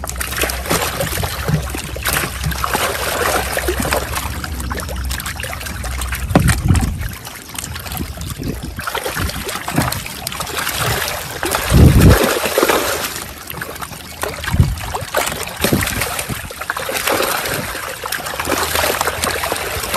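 Water splashing and trickling around a small fishing boat as a net is handled, with a few heavy low thumps, the loudest about twelve seconds in.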